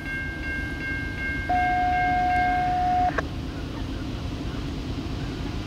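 Railroad grade-crossing warning bell ringing with steady high tones, stopping about two and a half seconds in. A single steady horn note sounds from about one and a half seconds to three seconds in and is the loudest sound, over a low rumble.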